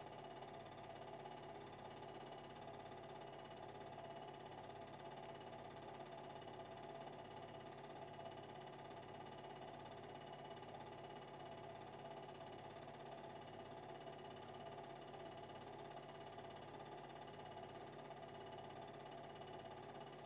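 Near silence: a faint steady hum and hiss with no sound from the scene, the film being silent, and a faint low pulse roughly once a second.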